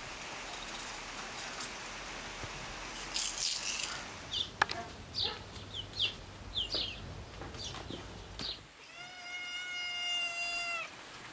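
A cat meowing: one long, level meow lasting about two seconds near the end, after a string of short, high chirps.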